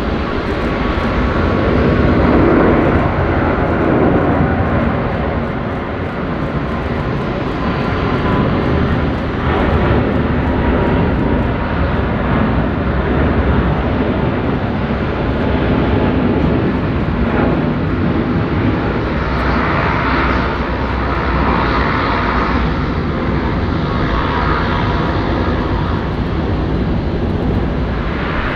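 Airliner engines at takeoff power, a loud, steady roar through the departure that peaks a few seconds in.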